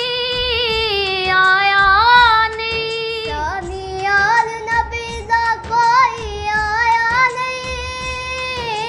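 Boys' voices singing a Punjabi naat, drawing out long held notes with wavering turns in the melody rather than clear words.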